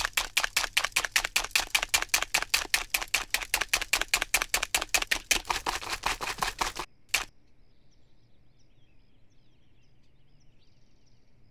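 Whisk clicking fast and evenly against a mixing bowl as pancake batter is beaten, about six strokes a second. It stops about seven seconds in, with one last click, and only a faint background remains.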